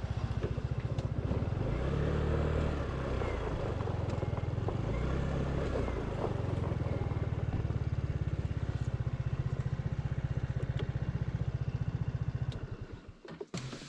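Motorcycle engine running while riding, its pitch shifting up and down a few times early on and then holding steady. It dies away about a second before the end.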